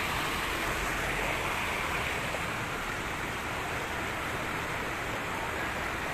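Muddy floodwater rushing steadily across a paved village street after a cloudburst.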